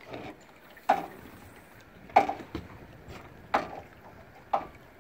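Small waves slapping against a boat hull: four sharp slaps, about a second apart.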